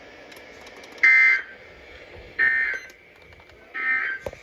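Emergency Alert System end-of-message code: three short bursts of SAME digital data tones, about one and a half seconds apart, marking the end of the flash flood warning.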